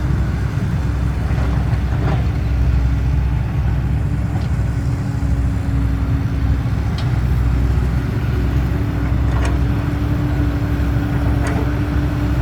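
Motor vehicle engine running steadily with a constant low drone and an even hum.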